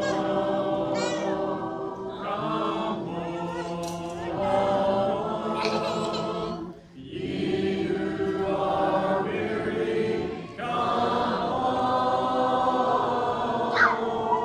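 Unaccompanied hymn singing: voices holding long notes in phrases, with short breaks about seven and ten and a half seconds in.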